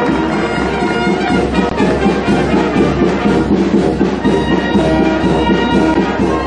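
Brass band playing, with steady held notes.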